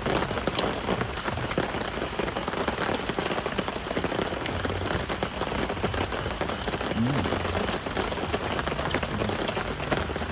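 Heavy rain falling steadily, with many separate drop hits heard up close.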